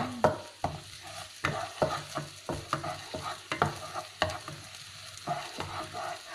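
Wooden spatula stirring ground spice paste in hot oil in a wok: irregular knocks and scrapes against the pan, about two or three a second, over a light frying sizzle.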